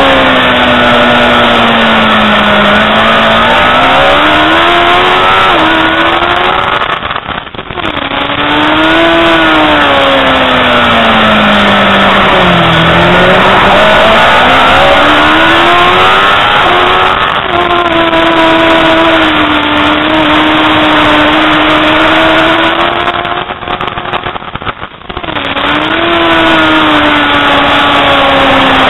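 Onboard sound of a racing superbike's engine at speed, its pitch rising and falling repeatedly as it accelerates and slows through the corners, with two brief dips in loudness.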